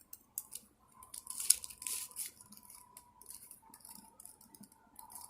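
Irregular crinkling, rustling and small clicks from hands handling small plastic fidget toys, busiest in the first half, over a faint steady high tone.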